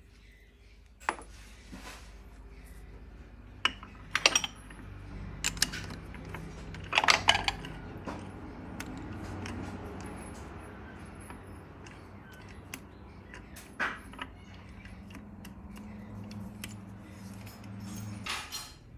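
Metal clinks and knocks as a brass workpiece is handled and clamped in a lathe chuck, the jaws tightened with a chuck key: a few separate sharp knocks, with a quick cluster about seven seconds in. A steady low hum runs underneath and cuts off shortly before the end.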